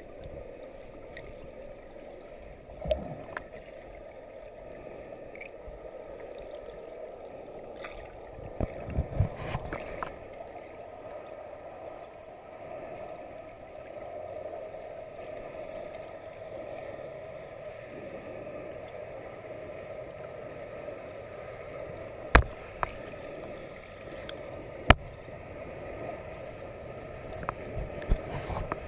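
Rushing creek water heard underwater, from a rapid pouring into the pool: a steady, low rushing hiss. A few sharp knocks stand out, the two loudest about two-thirds of the way through.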